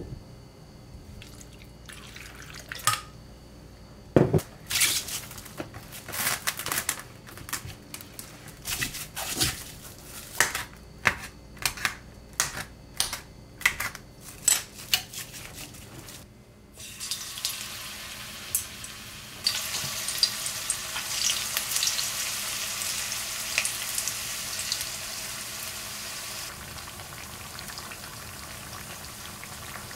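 Sharp crinkles and clicks of cling film being stretched over a glass bowl of cut sweet potato. From about halfway, sweet potato cubes sizzle as they fry in oil in a pan, a steady hiss with fine crackles.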